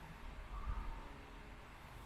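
A sleeping person breathing, with one brief low snore about half a second in, over a faint steady hiss.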